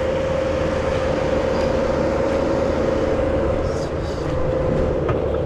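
A skid steer's diesel engine running steadily, a constant hum held over a low rumble.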